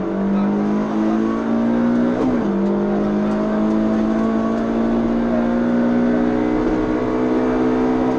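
Suzuki Swift PS16 rally car's engine under hard acceleration, heard from inside the cabin: the revs drop with a quick upshift at the start and again about two and a half seconds in, then climb steadily through the gear.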